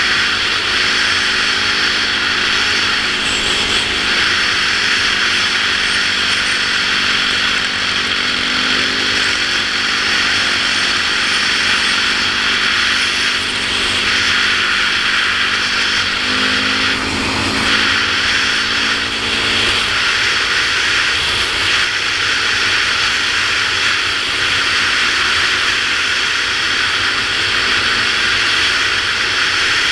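Yamaha YZ450F single-cylinder four-stroke dirt bike running at road speed on pavement, with heavy wind rush on a helmet-mounted camera. The engine note changes pitch a little past halfway.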